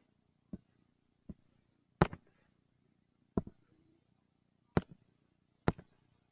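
Six short, sharp clicks, irregularly spaced about a second apart, the loudest about two seconds in: clicks and taps from picking the pen tool and a colour in a drawing app.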